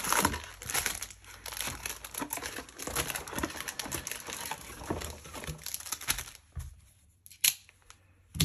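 Foil wrappers of Magic: The Gathering set booster packs crinkling and rustling in irregular bursts as the packs are pulled out of their cardboard booster box, with a couple of sharper taps near the end.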